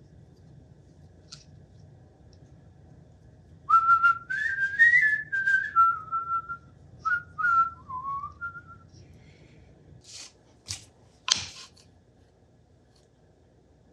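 A person whistling a short tune that rises and falls for about five seconds, then a few sharp clicks or knocks, the loudest near the end.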